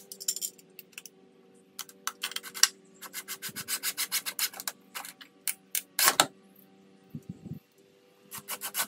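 Cordless drill with a square-drive bit driving heavy-duty screws through a metal mounting bracket into the wall. The motor runs in several bursts with a rapid rasping, clicking rhythm as the screws bite and tighten down.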